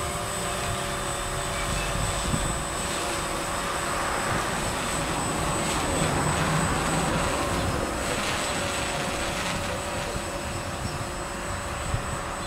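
DJI Phantom quadcopter's electric motors and propellers whining steadily as it flies overhead, a little louder about six seconds in, over a low rumble of wind on the microphone.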